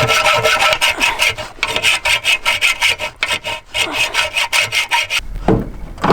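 Hacksaw cutting the mounting feet off a radiator's metal bottom edge, in quick back-and-forth strokes with a metallic ring. The sawing stops about five seconds in, followed by two sharp knocks.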